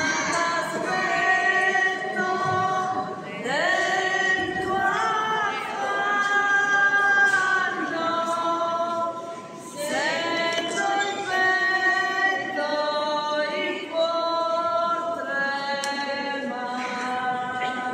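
Unaccompanied group of voices singing a slow devotional chant in a large church, in phrases of long held notes.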